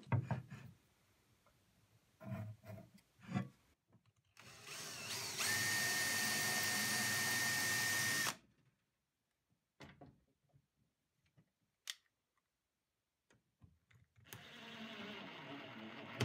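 Makita cordless drill/driver spins up with a rising whine, runs steadily for about four seconds and stops. A second, quieter run comes near the end, with a few light knocks and clicks between. It is working at a brass cabinet latch on a wooden door.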